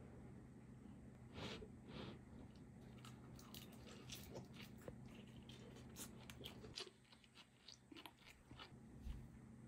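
Faint biting and chewing of a pizza slice with a crisp crust: two crunchy bites about a second and a half and two seconds in, then many small crunching chews that thin out about seven seconds in.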